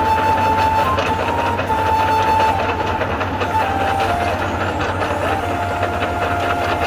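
Truck-mounted rotary snow blower running steadily as it cuts through deep snow, its engine and spinning blower making a continuous heavy rumble. A held high tone rides on top and steps down in pitch a few times.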